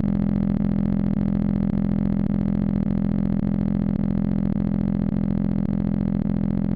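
Steady low-pitched buzzing hum, unchanging in pitch and level.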